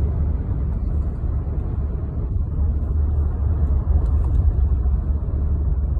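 Steady low rumble of a pickup truck driving on the road, engine and road noise with no change in speed.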